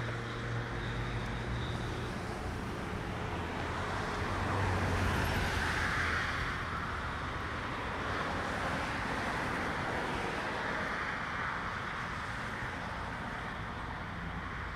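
Road traffic: a steady rumble, with one vehicle passing that swells to its loudest about five seconds in and fades by about seven.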